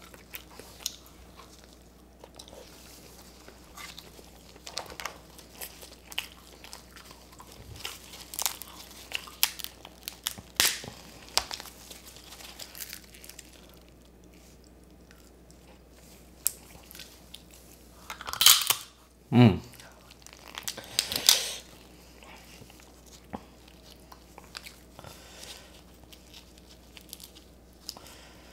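Close-miked eating of stir-fried crab: scattered sharp cracks and crunches of shell, tearing, chewing and sucking of the meat. A cluster of louder cracks and a falling slurp come about two-thirds of the way through.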